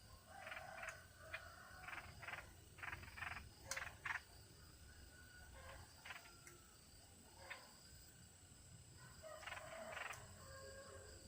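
Faint clusters of short, rasping animal calls in quick runs, a burst of several in the first few seconds and another near the end.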